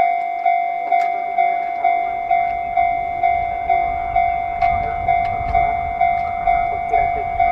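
Level-crossing warning bell ringing steadily with two tones, about two and a half strikes a second, as a JR 185-series electric train approaches; the train's low rumble builds from about two seconds in.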